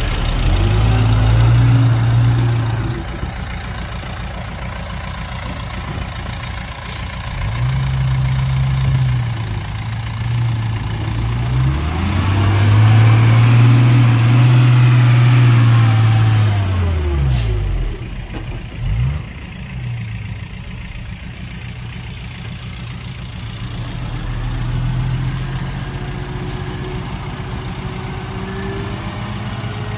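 Heavy diesel engines of earthmoving machinery running and revving up and easing back several times, loudest near the middle, where the engine note swells and then drops away.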